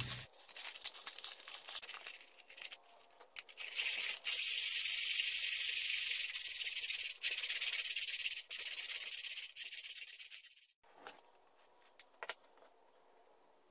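Sandpaper rubbing on a plywood mug by hand: scratchy sanding strokes, short and spaced at first, then a long fast run of rubbing that stops about eleven seconds in. A few light clicks follow near the end.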